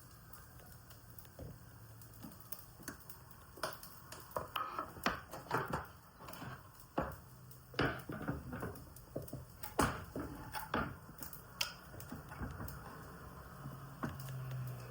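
Irregular clicks and knocks of kitchen work, such as utensils and cookware being handled, thickest through the middle, over a faint low hum.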